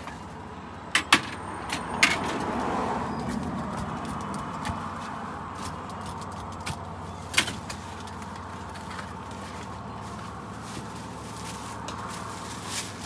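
Sharp clicks and clacks of a metal spatula and a rolling pizza cutter against a cardboard pizza box on a metal counter, a few scattered strikes with the loudest about a second in and at two seconds, over a steady background hum.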